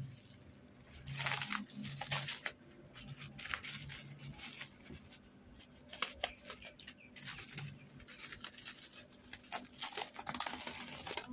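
Plastic cling film crinkling in irregular bursts as a hand handles it and pulls at it.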